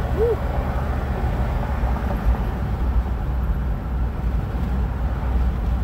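Steady low road and engine rumble of a Jeep under way, heard from inside the cabin.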